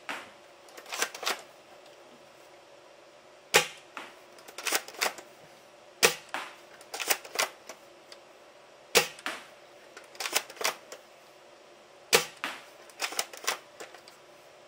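Gang Jiang M24 bolt-action gel blaster firing four shots about three seconds apart, each a sharp crack. Each is followed by a few quick clicks as the bolt is worked to cock it and chamber the next gel ball.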